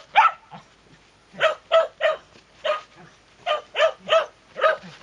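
Shetland sheepdog barking: about nine short, sharp barks in quick runs of two or three.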